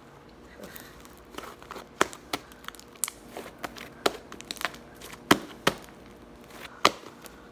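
Homemade fluffy slime, made with shaving cream, being stretched and squeezed by hand, giving a string of sharp, irregular pops and crackles, the loudest a little past five seconds in and near the end.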